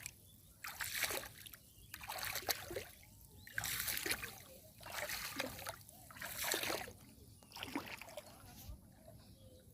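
Water splashing in a regular rhythm, about one swash every second and a bit, like rowing strokes pulling a small boat through the water.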